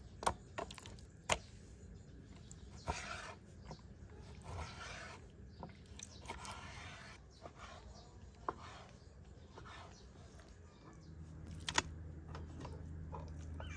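Large kitchen knife slicing raw chicken breast on a wooden cutting board, with the soft sound of the blade drawing through the meat and a sharp knock each time it strikes the board.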